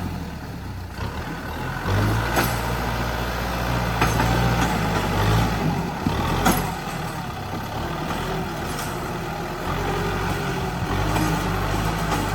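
Heavy construction machine's diesel engine running, its speed and load shifting, with occasional sharp clanks and knocks.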